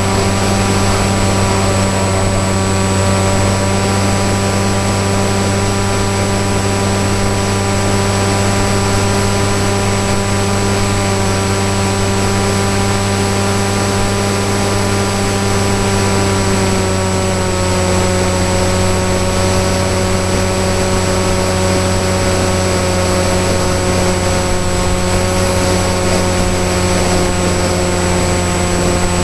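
Nitroplanes PopWing RC flying wing's motor and propeller running steadily in flight, heard with a hiss of air rush. The pitch steps slightly lower about 17 seconds in as the throttle eases.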